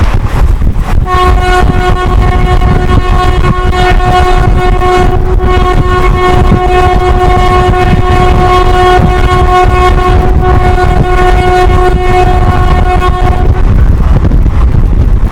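Indian Railways WAP-4 electric locomotive's horn held in one long steady blast of about twelve seconds, starting about a second in and cutting off near the end, over the loud rumble of the train running at speed.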